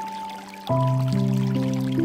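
Background music of soft sustained notes: a single high note held, then a fuller, louder chord coming in under a second in, with more notes added one by one.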